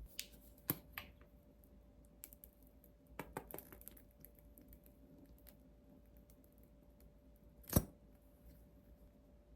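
A few faint, scattered clicks and taps over a low steady hum, with one sharper knock near the end.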